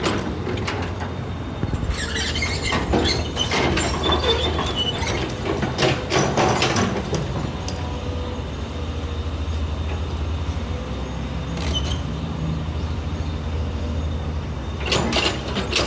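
Heavy construction machinery with a diesel engine running at a steady low drone, with bursts of metallic clanking and squeaking over it for a few seconds early on, briefly again in the middle and once more at the end.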